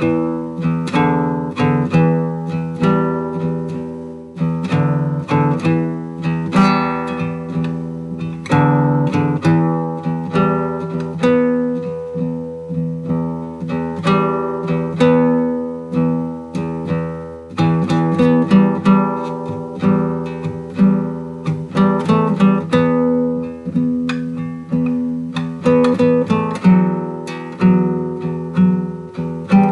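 Solo acoustic guitar played fingerstyle: plucked notes and chords, several a second, each left to ring.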